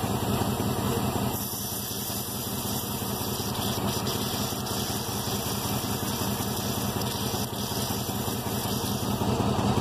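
5.9 L 24-valve Cummins inline-six diesel running steadily at idle, heard close up in the open engine bay.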